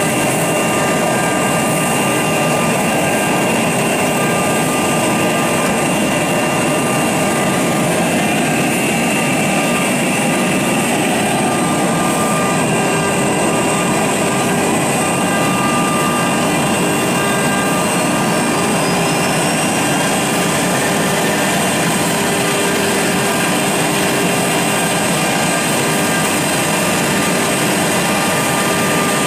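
CNC wood router's spindle running and carving a groove in a wooden door panel: a steady whine with several held tones over a constant rushing noise of the bit in the wood.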